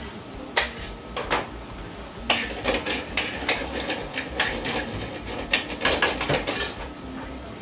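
Metal tongs and a spatula clattering and scraping against a metal frying pan as chopped vegetables are stirred, in irregular clicks and knocks.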